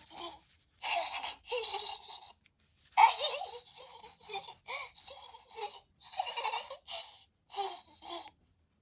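Little Live Pets Cubbles the Bear toy playing its recorded baby-bear giggles and coos: a string of short, pitched vocal sounds, the loudest about three seconds in, cutting off suddenly near the end.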